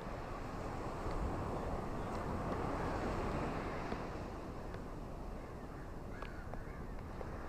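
Ocean surf rushing steadily with wind, swelling about a second in and easing off after about four seconds, with a few faint, short bird chirps above it.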